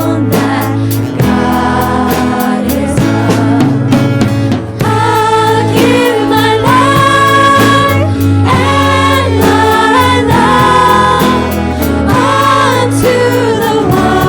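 Christian worship song: several voices singing together over instrumental backing with a steady bass line, holding long notes.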